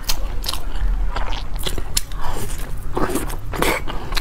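Close-miked mouth sounds of someone eating a dessert: wet clicks and smacks a few times a second, with louder chewing about three seconds in.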